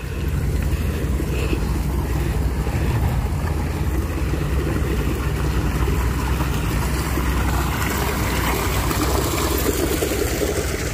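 Wind buffeting the phone's microphone, a steady low rumble that starts abruptly and holds throughout.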